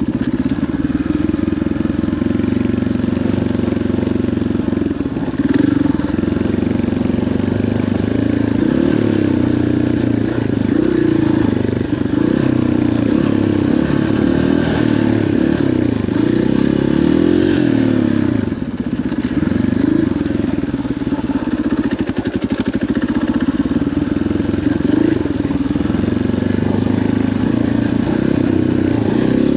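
KTM 500 XCF-W dirt bike's single-cylinder four-stroke engine running under way on a trail, its pitch rising and falling with the throttle, with some clatter from the bike.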